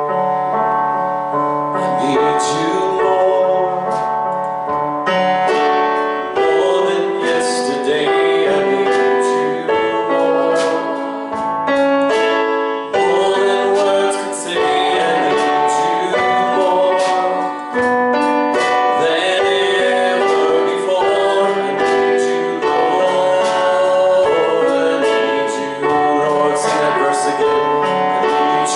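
Worship music played on keyboard: sustained chords changing every second or two, with a steady pulse of sharp beats.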